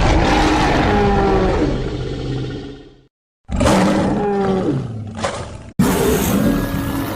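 Dinosaur roar sound effects played one after another: a long roar that fades away after about three seconds, a brief silence, then a second roar that cuts off suddenly and a third that starts straight after it.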